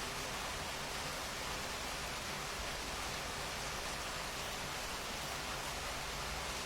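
Steady rain falling, an even hiss with no single drops or breaks standing out.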